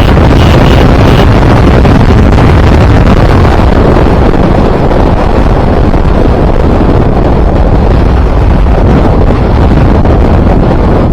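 Wind buffeting the microphone on a moving KTM RC 200 motorcycle, loud and steady, with the bike's single-cylinder engine running underneath.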